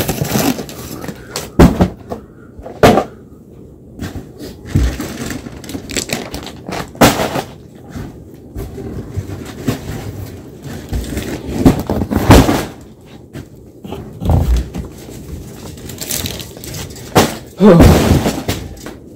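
Cardboard snack boxes and plastic-wrapped snack multipacks being picked up, shuffled and set down: irregular knocks and thumps with handling noise, the loudest clusters a few seconds apart.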